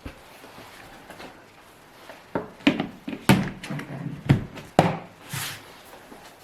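A series of sharp knocks and clacks of objects being handled, about half a dozen over a few seconds, followed by a short scraping rub.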